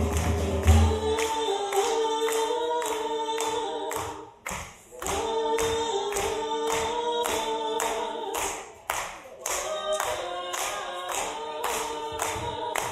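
Folk band's voices singing together in harmony with no instruments, over steady hand claps about three a second. A low didgeridoo drone stops about a second in, and the singing breaks off briefly twice between phrases.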